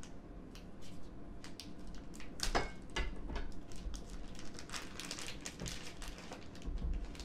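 Plastic vacuum-sealed sausage package crinkling and rustling as it is slit open with a cleaver on a wooden board and the sausages are pulled out, in a run of small clicks and crackles. A sharp knock stands out about two and a half seconds in.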